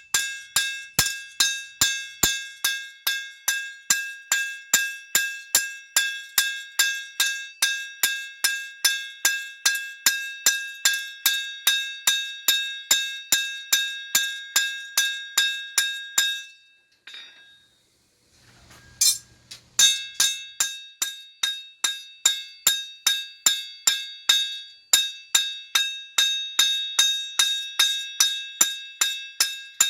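Hammer blows on cold steel over an anvil: a steady run of about three strikes a second, each ringing with a high metallic tone, as a thick tool-steel bar is cold forged. The blows pause for a couple of seconds past the middle, where there is a brief duller handling noise, then resume.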